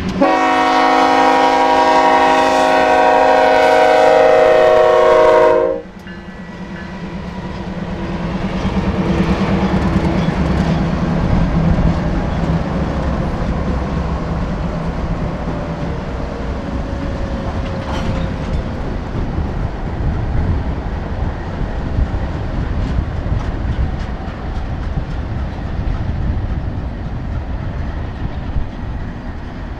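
Diesel freight locomotive horn blowing one long chord of several tones for about six seconds, then cutting off sharply. After it, the lead locomotives' diesel engines drone past, followed by the steady rumble and clatter of double-stack container cars rolling by.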